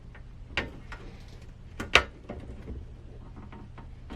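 A few sharp clicks and knocks of a hose clip being fitted onto a diesel air heater's hose, the loudest about two seconds in, over a faint low steady hum.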